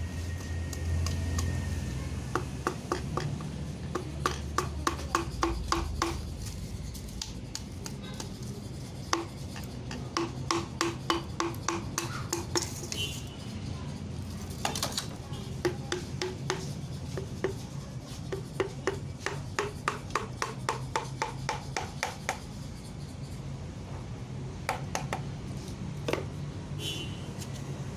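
Runs of sharp metallic clicks, about three or four a second, each run lasting a few seconds with short pauses between, from hand tools working on a bare engine block.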